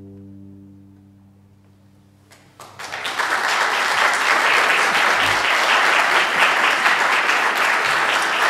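The orchestra's final held chord dies away over the first two seconds, followed by a brief hush. The audience then breaks into applause about two and a half seconds in, quickly filling out into steady clapping.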